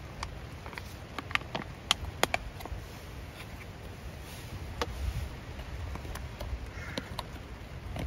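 Foil freeze-dried meal pouch being torn open and handled, crinkling with a cluster of sharp crackles a second or two in and scattered ones after, over a steady low rumble.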